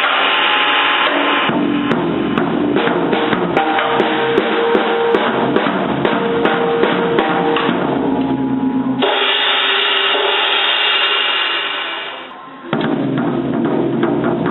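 A child banging on a drum kit: drums and cymbals struck in quick, irregular hits with the cymbals ringing on. The playing drops away briefly near the end, then starts again.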